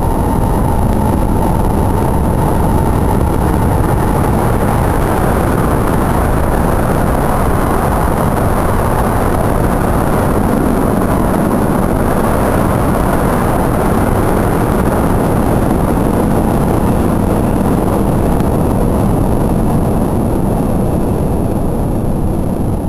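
Shinkansen bullet train running past, a loud steady rushing roar of wheels and air, with a faint high whine that falls slightly in the first few seconds.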